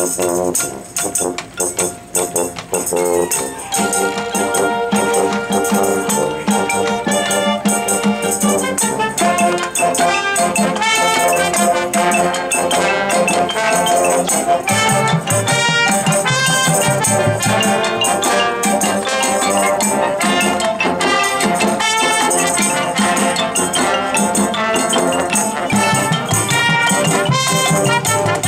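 Marching band playing. It opens with a few seconds of scattered percussion strikes, then brass and woodwinds enter with held chords that build and thicken.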